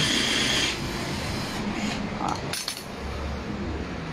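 Cordless drill-driver running briefly as it backs a screw out of a manual washing machine's plastic casing; it stops under a second in. Then light clicks, a short rattle and rubbing as the screw and panel are handled.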